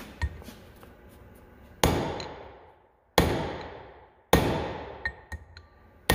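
Hammer blows on a steel drift punch, driving sealed bearings out of the hub of a cast iron planter closing wheel. After a light tap, four hard strikes land about a second or more apart, each one ringing and dying away.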